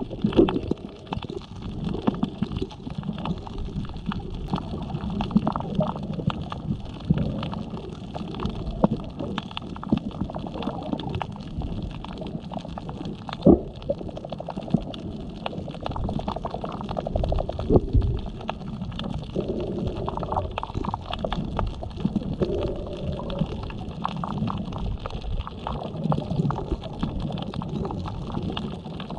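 Muffled underwater sound from a submerged camera: water gurgling and rumbling, with steady fine crackling clicks and a couple of louder knocks about halfway through.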